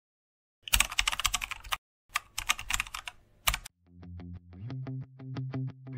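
Rapid keyboard-typing clicks in two runs of about a second each, a typing sound effect over a title card. About four seconds in, background music of plucked guitar notes starts.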